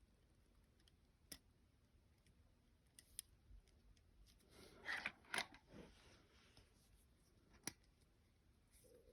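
Faint sharp metallic clicks from a Glock 29 pistol's parts being handled, with a louder burst of clicking and scraping about five seconds in.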